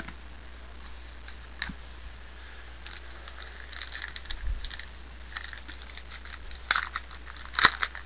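Trading cards being flipped and slid against each other in the hands: scattered light clicks and rustles of card stock, growing busier after the first few seconds, with the loudest snaps near the end.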